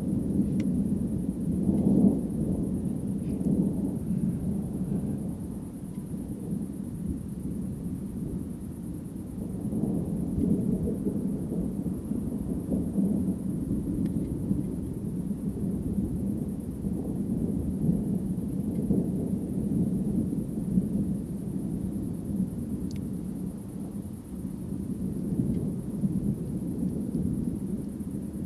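Distant thunder rumbling continuously, swelling and fading in slow rolling waves, with louder peals about two, ten and nineteen seconds in.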